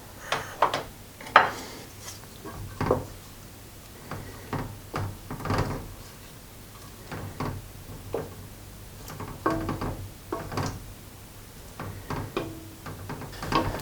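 Irregular knocks and clinks of a utensil against a cooking pot and soup plates as a creamy chicken stew is stirred and served; a few strikes leave a short ringing tone.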